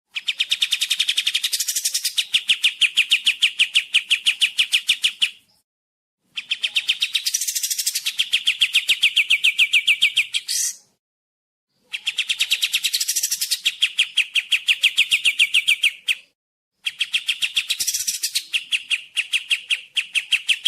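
Kapas tembak songbird singing long, fast trills of evenly repeated chirps, about ten notes a second. There are four trills, each lasting four to five seconds, with a short pause between them.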